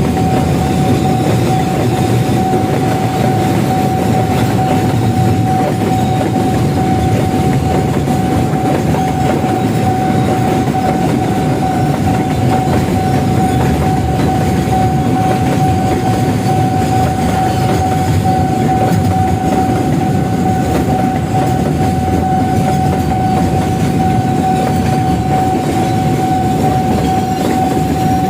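A train rolling past with steady rumbling and clickety-clack from its wheels on the rails, and a thin steady high-pitched tone under it.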